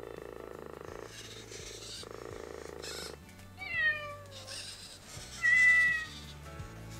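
Metacat robotic companion cat purring in slow, even pulses of about one a second, then giving two recorded meows from its speaker: the first falls in pitch, about three and a half seconds in; the second, about five and a half seconds in, is louder and held level.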